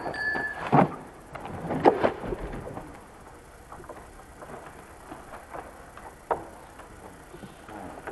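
Large wooden trebuchet firing: a run of loud knocks, with a brief squeak, from the swinging throwing arm and timber frame in the first two seconds. A softer rustling noise with scattered small ticks follows.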